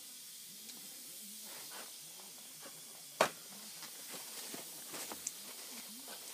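Small steel clamp parts being handled at a workbench: one sharp metal click a little after three seconds, then a few light ticks and the rustle of a paper towel over a faint hiss.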